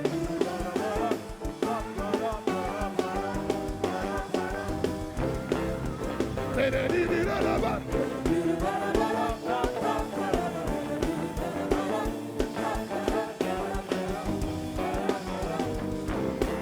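Upbeat live praise music from a band, with a steady drum beat and singing voices.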